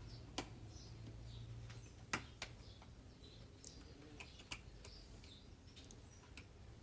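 Scattered sharp plastic clicks and taps from handling the fuse holder in a car's engine-bay fuse box, over a faint low hum.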